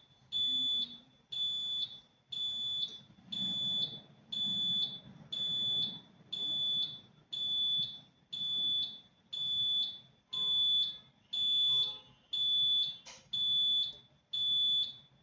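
Medical gas area alarm panel sounding its high-pressure alarm: a high-pitched electronic beep repeating steadily about once a second. It signals that the monitored gas line pressure has gone above the 8 bar high limit.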